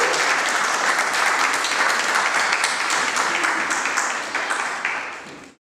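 A small group of people applauding, thinning out near the end and then cutting off suddenly.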